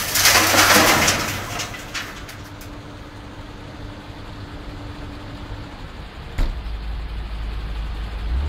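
Dirt pouring from a Komatsu PC200 excavator's bucket into a dump truck bed, a loud rushing rumble over the first two seconds. Then the excavator's diesel engine runs steadily with a steady whine as the machine swings back. About six seconds in there is a sharp knock, and the engine note deepens and grows louder.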